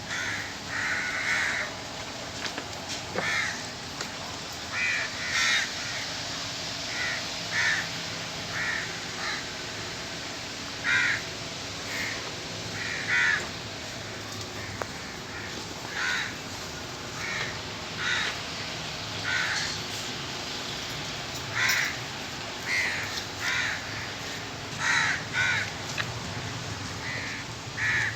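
Birds calling: short, repeated calls every second or so, sometimes two or three close together, over a faint steady low hum.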